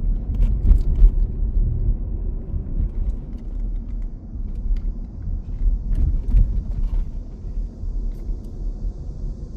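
Low, uneven outdoor rumble with a few faint clicks.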